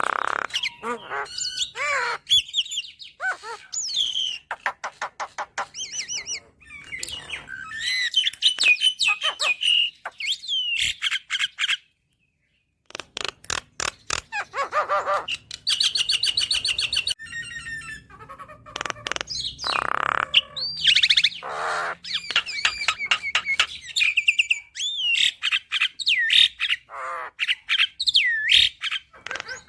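Javan myna singing a varied, full song: gliding whistles, harsh squawks and fast runs of clicks. The song breaks off for about a second near the middle, then carries on.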